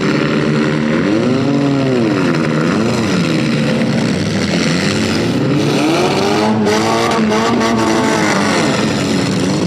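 Several demolition derby cars' engines revving hard, their pitches overlapping and swinging up and down repeatedly.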